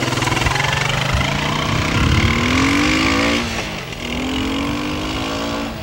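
ATV engine revving as the quad pulls away, its pitch rising about two seconds in, easing off briefly, then running steady.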